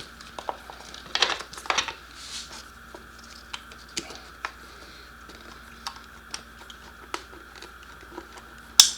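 Light plastic clicks and rustling as motorcycle ECU wiring connectors are handled and pushed into their sockets, ending with one loud sharp click near the end as a connector latches home.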